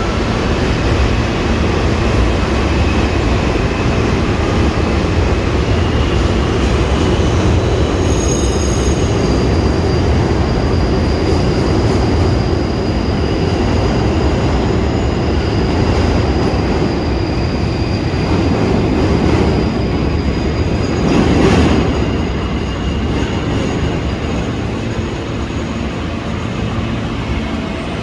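R160 subway train departing and running along the track: a steady rumble of wheels and cars, with thin high-pitched wheel squeal joining in about a third of the way through and a louder surge about three-quarters in.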